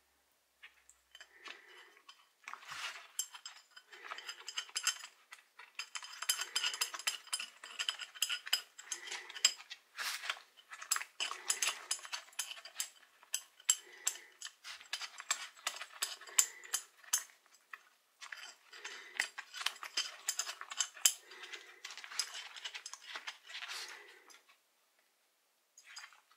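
Hand work on a rusty steel wrench: metal clinking and scraping in repeated strokes, with many sharp clicks.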